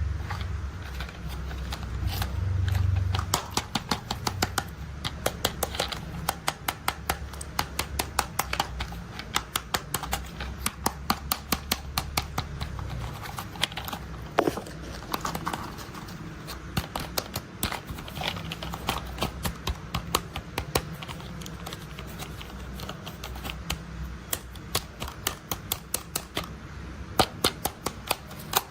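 Toy construction vehicles being tapped: a long run of light, quick taps and clicks, a few each second at an uneven pace, with a low rumble during the first three seconds.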